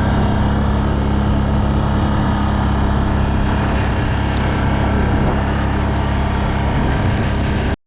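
ATV (four-wheeler) engine running steadily while riding, cutting off abruptly for a moment near the end.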